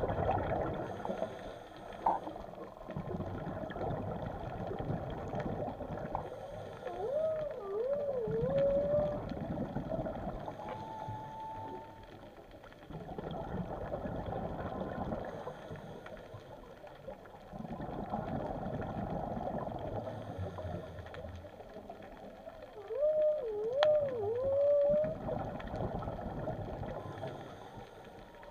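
Whale song heard underwater: a wavering, swooping call phrase sung twice, some sixteen seconds apart, with a higher held note between. Beneath it the rush of a scuba diver's breathing and exhaled bubbles comes and goes every few seconds.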